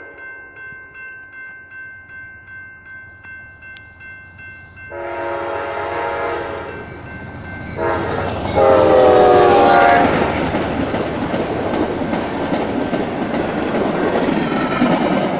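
Railroad crossing bells dinging about twice a second. About five seconds in, the locomotive leading an Amtrak Talgo passenger train sounds its horn in two blasts, a short one and then a longer, loudest one that drops in pitch as the locomotive goes by. The horn is followed by the steady rush and rumble of the Talgo cars rolling past on the rails.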